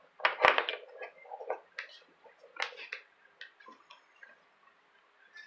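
Clicks and light knocks of red plastic spring-terminal blocks and speaker wire being handled and set down on a bench top: a cluster of sharper knocks in the first second, then scattered lighter ticks that thin out.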